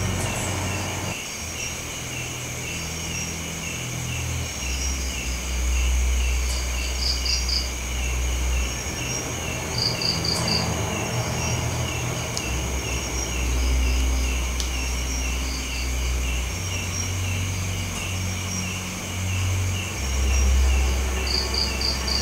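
Crickets chirping in a steady, even rhythm. Every few seconds a short group of about four quick, higher pulses sounds, over a low rumble that swells and fades several times.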